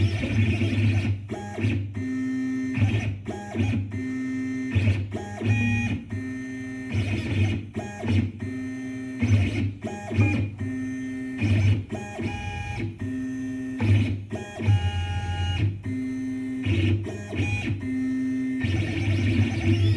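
CNC machine stepper motors driving the axes through a dry run: a series of short humming moves, each held at a steady pitch that changes from move to move, with brief pauses between them. No spindle or cutting sound is heard.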